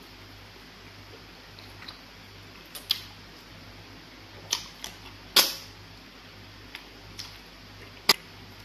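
Close-miked eating sounds: scattered sharp, wet mouth smacks and clicks from chewing pounded fufu with egusi soup eaten by hand. The loudest come about halfway through and near the end, over a faint low steady hum.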